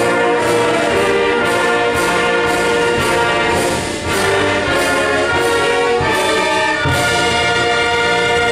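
Concert band playing loud sustained brass chords over a steady percussion beat about twice a second. A long held chord begins about seven seconds in.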